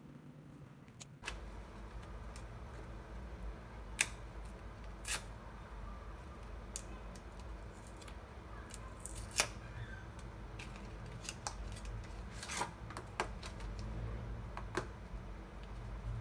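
Hands opening a small cardboard cheese box and handling a foil-wrapped block of cheese: scattered sharp clicks, tears and crinkles of cardboard and foil over a low steady hum that starts about a second in.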